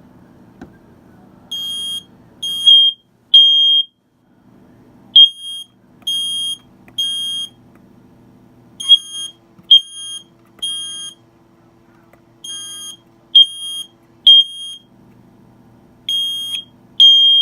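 Smoke detector alarm sounding on test, beeping in the temporal-three pattern: groups of three high-pitched beeps, a new group about every three and a half seconds.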